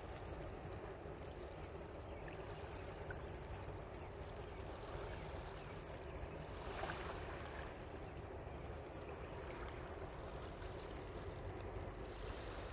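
Faint steady low rumble and wash of water from a passing Great Lakes freighter, the Walter J. McCarthy Jr., with river water moving at the shore. A short higher-pitched sound stands out briefly about seven seconds in.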